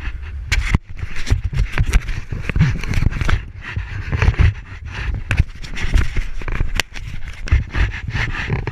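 Wind buffeting the camera microphone in irregular gusts, with scattered sharp clicks and scraping over it.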